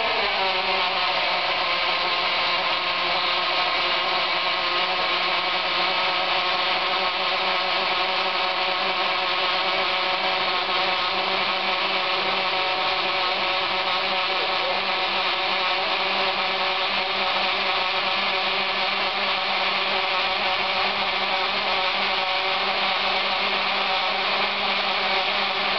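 Gas rushing into an Avon inflatable life raft that is being over-pressurised to failure. It makes a steady, loud hiss carrying several level whistling tones.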